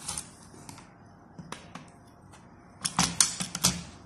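Hard plastic clicks and knocks as the roller brush is fitted back into a Dibea D008Pro vacuum floor head and its end cap is handled. A few scattered clicks, then a quick cluster of louder ones about three seconds in.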